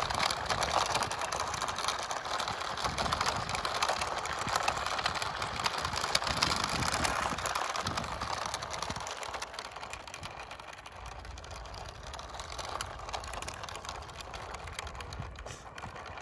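Toy RC monster truck's small electric motor and gears whirring as it drives over loose gravel, its tyres crunching the stones. The sound is louder for about the first half, then fades as the truck moves off.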